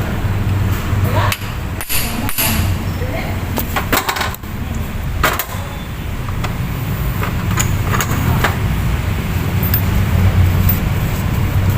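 A scattering of sharp taps and clicks, most of them in the first half, over a steady low hum.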